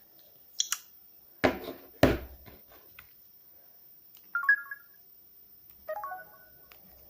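Two dull knocks of a phone being handled, then a Samsung phone's speaker playing two short electronic ringtone snippets a second and a half apart.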